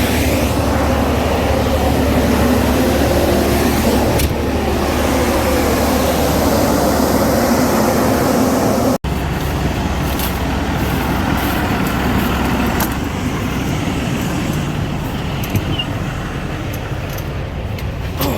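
Heavy farm machinery running steadily, an engine-like hum with a dense noisy layer on top. It cuts out for an instant about nine seconds in and goes on after the break.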